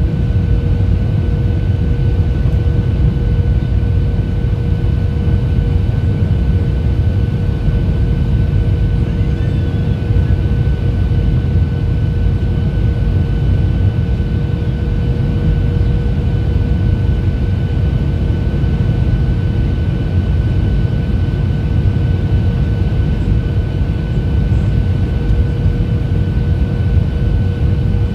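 Airliner cabin noise on the descent to landing: a steady, loud low rumble of engines and airflow with a constant high engine whine over it.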